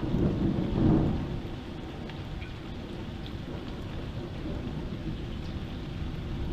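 A clap of thunder rumbling, loudest about a second in and then fading, over steady heavy rain.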